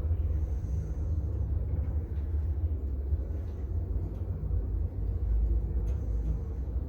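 Schindler passenger lift car travelling down between floors, heard from inside the car: a steady low rumble, with a faint click about six seconds in.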